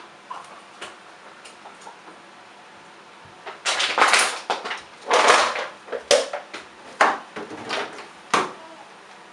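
Plastic Lego pieces being handled: faint small clicks, then from about three and a half seconds in a run of six or so loud clatters and rattles, one of them longer, ending shortly before the end.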